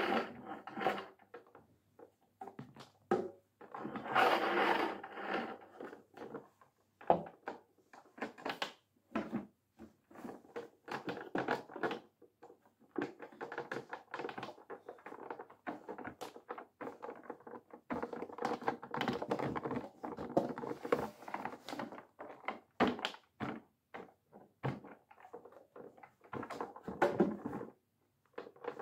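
Wacky Washer toy washing machine being handled and run: plastic rattling and clattering, with the small plastic clothes pieces knocking about inside and scattered clicks and thunks as it is tipped and set down.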